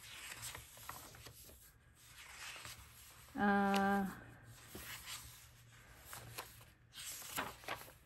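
Pages of a Midori notebook being turned and smoothed by hand, soft paper rustling and brushing. About three and a half seconds in, a short steady hum at a single low pitch, held for under a second, is the loudest sound.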